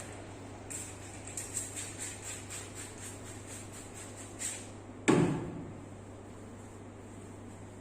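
Hands massaging a person's body: a run of light, quick strokes on the skin, about three a second, then one loud thump about five seconds in, over a steady low hum.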